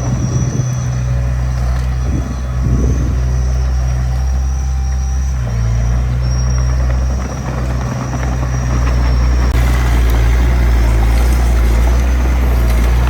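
Small bulldozer's diesel engine running steadily under load, with a thin high whine above it; from about ten seconds in a louder, rougher rush of noise joins the engine.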